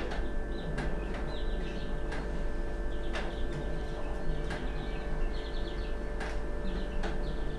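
Small birds chirping repeatedly in the background over a steady low hum, with about eight sharp clicks scattered through, about a second apart or more.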